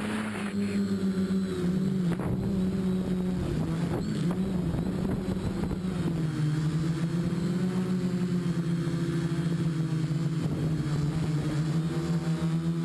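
Quadcopter's four brushless outrunner motors (MT2208 1100 kV) and Gemfan propellers humming steadily, heard from a camera mounted on the frame. The pitch wavers with throttle changes and settles a little lower about six seconds in.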